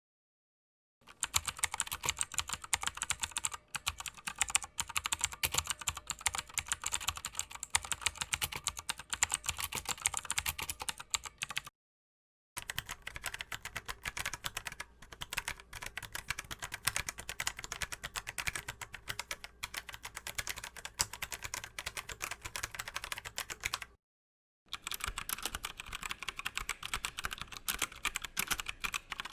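Computer keyboard typing: dense, fast keystroke clicks in three stretches, broken by short silences about halfway through and again near the end.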